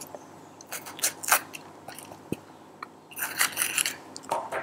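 Small kitchen knife cutting into a crisp green bell pepper half on a plastic cutting board, trimming away the core and seeds: irregular short crunches and scrapes, with one sharp knock a little past halfway and a quick run of crunches after about three seconds.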